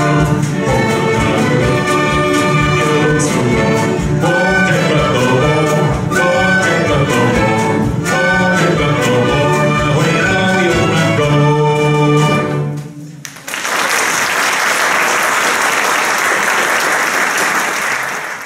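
A mixed ensemble of violins, flutes, cellos, guitars and harp plays a lively tune with a steady strummed beat, ending on a final chord about twelve seconds in. An audience then applauds.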